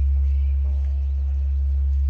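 Lingering low hum of a large Korean bronze temple bell after it has been struck, steady with a slow, gentle swell. A bird chirps faintly near the start.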